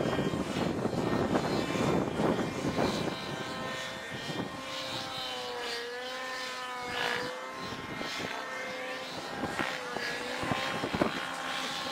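Electric motor and propeller of a 59-inch radio-controlled model biplane in flight: a steady whine that dips in pitch and comes back up twice, about six and about ten seconds in, as the plane manoeuvres. A low rushing noise covers the first three seconds.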